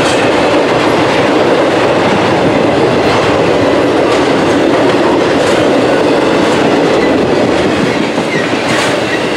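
Freight cars of a fast Norfolk Southern intermodal train, loaded with truck trailers, passing close: a loud, steady rumble of steel wheels on rail, with a few sharp clicks from the wheels over the track.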